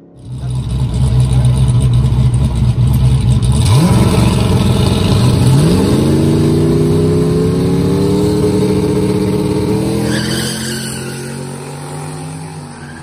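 Turbocharged big-cubic-inch F-body Camaro drag car running loud and steady at the line. It then launches and accelerates hard down the strip, its pitch sweeping up twice through the gear changes and then climbing slowly as it pulls away and fades.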